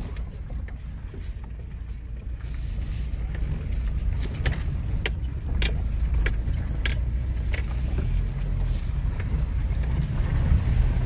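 Inside a car's cabin as it drives slowly over a rough, muddy dirt road: a steady low rumble with many scattered clicks and rattles.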